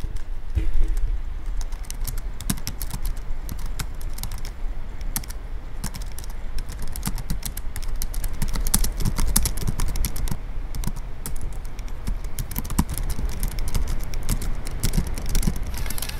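Fingers typing quickly on a laptop keyboard, a dense, irregular run of key clicks over a steady low hum.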